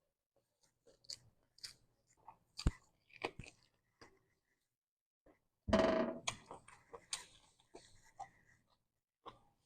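A person chewing and biting food close to the microphone, with short wet, crunchy mouth clicks. A louder, noisier mouth sound comes about six seconds in.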